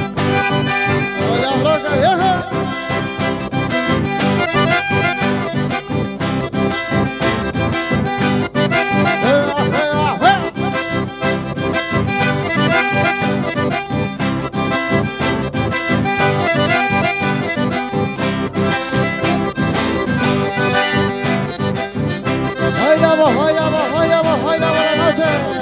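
Live accordion-led Latin American dance music with a steady beat.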